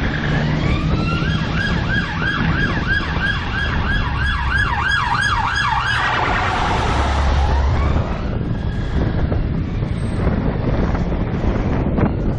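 An emergency vehicle siren in a fast yelp, rising and falling about three times a second, then one slower falling wail before it fades. Steady road and wind noise from a moving scooter runs underneath.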